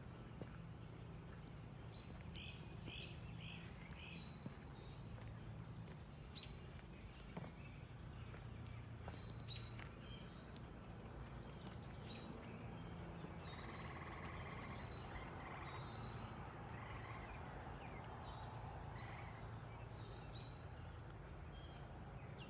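Birds chirping in short, scattered calls, busier in the second half, over a steady low background rumble.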